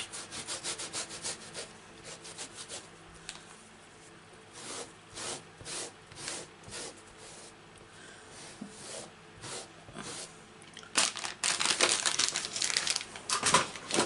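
Baby wipe rubbed back and forth over a large rubber brick-wall stamp, cleaning the ink off its textured surface: a run of quick scratchy scrubbing strokes that get denser and louder near the end.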